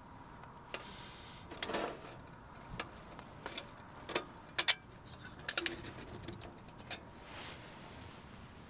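Small hard objects being handled: a string of irregular sharp clinks and taps, a few of them ringing briefly, loudest in the middle.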